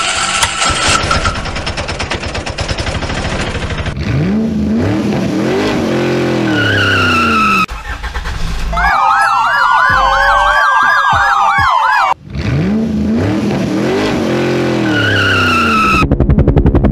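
A string of vehicle sound effects: an engine running and revving with rising and falling pitch, a siren wailing for about three seconds in the middle, then the revving engine again and a fast steady engine beat near the end.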